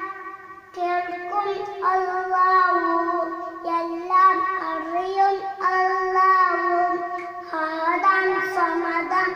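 A young child singing a song solo, without accompaniment, in long held notes with short breaks between phrases.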